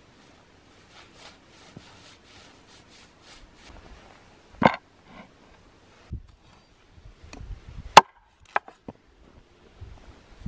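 Soft brushing strokes as snow is swept off a tree stump, then a wooden cutting board knocked down onto the stump with one loud knock, a dull thud as the raw bird is laid on it, and a few sharp wooden knocks, the loudest about eight seconds in.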